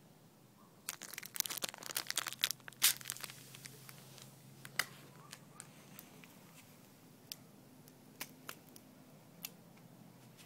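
Foil perfume-bomb (stink bomb) packet crinkling and crackling as it is squeezed and crumpled by hand, a dense run of crinkles lasting about two seconds. Then a few single sharp ticks, spaced out.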